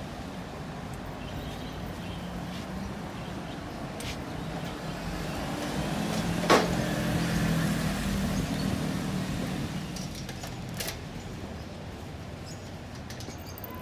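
Street traffic: a motor vehicle's engine swells up and fades away in the middle of the stretch. A single sharp click sounds about six and a half seconds in.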